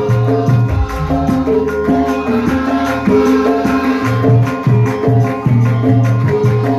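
Javanese gamelan ensemble playing, the bonang's small kettle gongs struck in quick runs of ringing metallic notes over deeper held tones.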